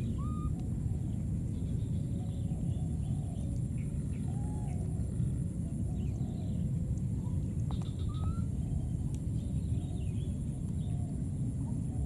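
Baby monkeys giving short, soft, arching calls every second or so over a steady low rumble, with a high steady drone behind.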